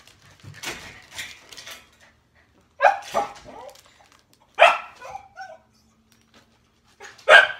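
A dog barking, four short sharp barks spread over several seconds, with plastic packaging crinkling faintly in the first couple of seconds.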